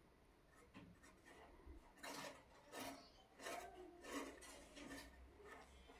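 Faint rubbing of palms rolling small balls of stiff dough, in a run of short strokes about three every two seconds, starting about two seconds in.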